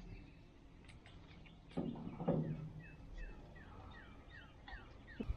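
A bird calling a quick run of short, falling whistled notes, about three or four a second. A brief louder low noise comes just before it, about two seconds in.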